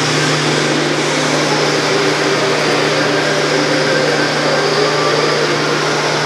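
Forrest Model 989 dust collection system's vacuum motor running steadily: an even rushing noise with a low, constant hum underneath.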